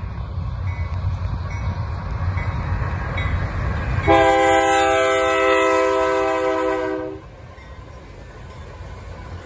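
BNSF GE Dash 9-C44CW diesel locomotive sounding one long blast on its Nathan K3LA three-chime air horn, starting about four seconds in and lasting about three seconds. The horn sags slightly in pitch as it ends. Under it the locomotive rumbles low as it approaches.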